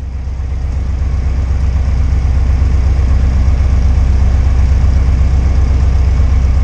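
Cessna 152's four-cylinder Lycoming piston engine idling, heard inside the cockpit as a steady low drone, getting a little louder over the first couple of seconds.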